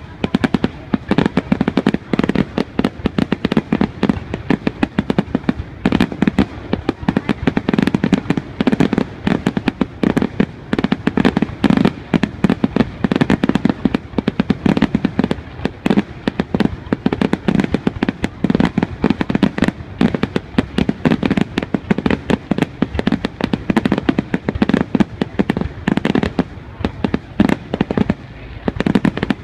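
Aerial fireworks display: a dense barrage of shell bursts and crackle, many bangs a second with no pause.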